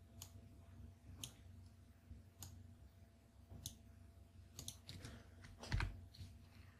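Faint computer mouse clicks, scattered about one a second with a quick cluster of them past the middle, and a duller, louder knock near the end.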